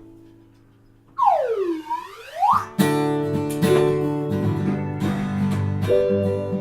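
Live band music: after a brief lull, a pitched sound swoops down and back up. Then the band comes back in with strummed acoustic guitar.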